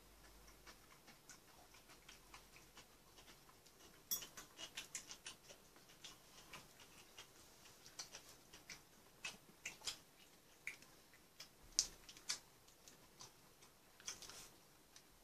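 Faint, scattered light clicks of chopsticks and a spoon tapping against bowls during a meal, with small bursts of several quick clicks about four seconds in and again around ten to twelve seconds.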